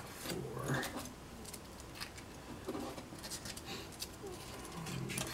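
Light, scattered clicks and taps of small XPS foam pieces being picked up and set down on a plywood board, with a low voice muttering briefly near the start and near the end.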